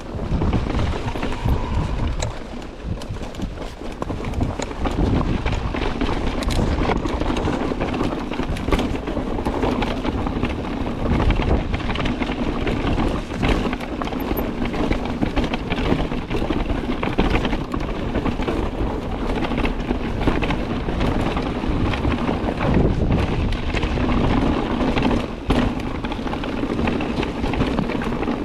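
Mountain bike riding a rough trail: tyres rumbling and the bike clattering over stones in quick, irregular knocks, under heavy wind buffeting on the microphone.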